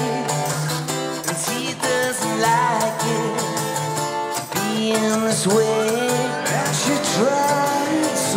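Live band playing a song: strummed acoustic guitar with sung vocals over it.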